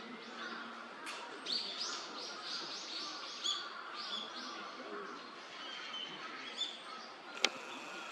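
Small songbird chirping in the background, a run of quick, high, down-slurred notes about three a second, with a few more scattered later, over a steady outdoor hiss. A single sharp click sounds about seven seconds in.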